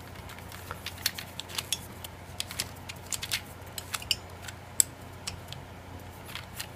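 HeShu Gear Pyraminx being turned by hand: irregular small plastic clicks and clacks as its geared pieces twist.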